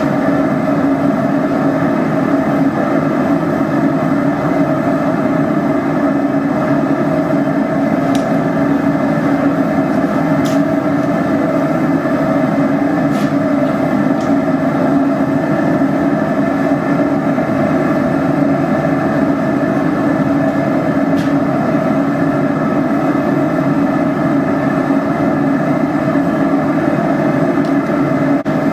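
A forge running with a steady, loud rushing noise and a constant hum, the burner or blower heating iron spikes. A few faint ticks sound now and then over it.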